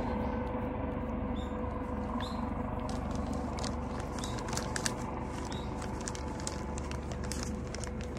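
A cat licking and lapping at a plastic bowl: a run of small, irregular wet clicks starting about three seconds in, over a steady low background hum.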